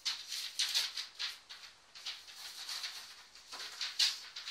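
Sheets of paper rustling as they are handled and pulled off a wall, in a series of short scratchy bursts, the loudest about four seconds in.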